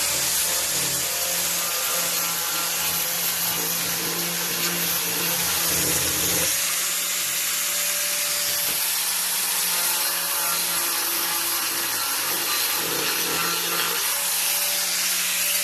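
Electric angle grinder running steadily with a motor whine and hiss as it cuts into plywood. A low rumble underneath drops away about six and a half seconds in.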